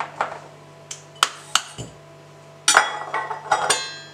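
Metal measuring cup knocking against a ceramic mixing bowl as packed brown sugar is turned out: a few separate sharp taps, then a quick cluster of clinks near the end with a short metallic ring as the cup is set down against another measuring cup.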